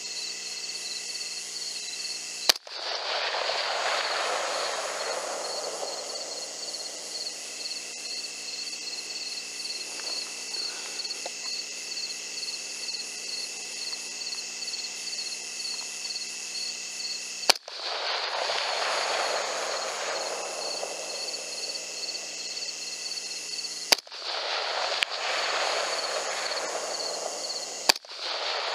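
Rifle shots fired at a coyote: a sharp crack about two and a half seconds in, another some fifteen seconds later, then three more close together near the end, the second of these fainter. Each crack is followed by a few seconds of rolling echo, over a steady pulsing insect chorus.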